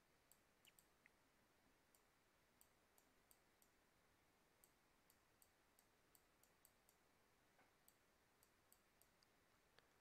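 Near silence with faint, irregular clicks of a stylus tip tapping on a tablet screen while handwriting numbers, about two or three a second.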